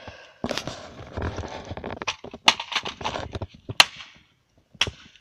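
Broken plastic toy gun clattering as it is handled, loose pieces rattling, followed by a few separate sharp knocks.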